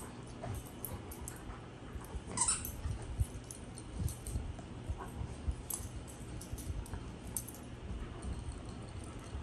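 Dogs moving about with soft low thumps over a steady low hum, and one brief dog whimper about two and a half seconds in.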